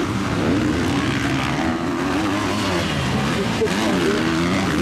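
Motocross bikes' engines revving on the track, several at once, the pitch rising and falling as the riders throttle on and off over the rollers.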